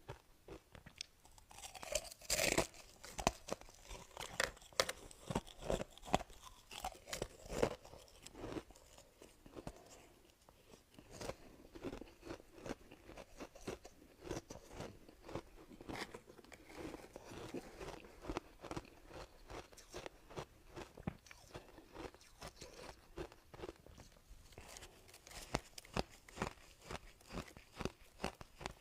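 A person biting and chewing soft ice at close range, a run of irregular crisp crunches with the loudest bite about two and a half seconds in.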